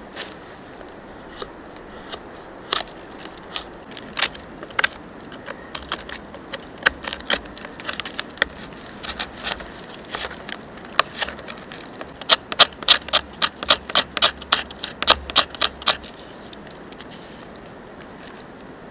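Knife blade scraping shavings off a resin-rich pine branch stub (fatwood) in short, sharp strokes. The strokes are scattered at first, then come quickly and loudly, about four a second, for a few seconds before stopping near the end.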